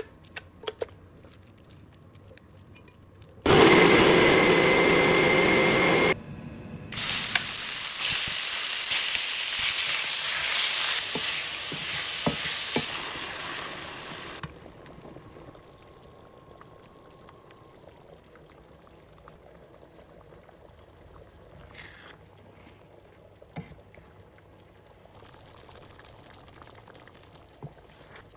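Food sizzling loudly in a hot pan, in two stretches a few seconds in. The second stretch is longer and dies away, and light kitchen clicks and handling follow.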